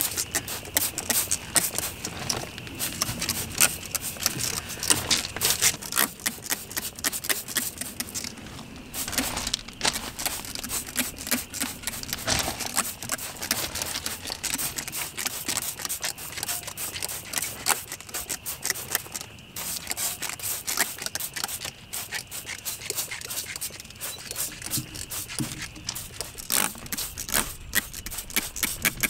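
Hand trigger spray bottle squirting degreaser onto tractor axle and hub parts in rapid, repeated short spritzes.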